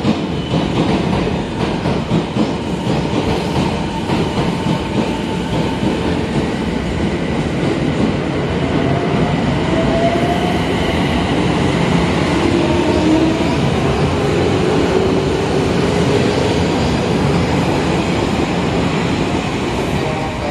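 Odakyu 3000 series electric commuter train pulling out of the station and running past along the platform, the whine of its motors rising in pitch as it gathers speed.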